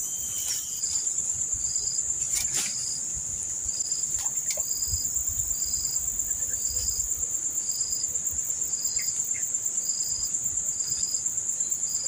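Insect chorus: a steady high-pitched buzz pulsing rapidly, with a second, shorter chirp repeating a little faster than once a second. There is a brief click about two and a half seconds in.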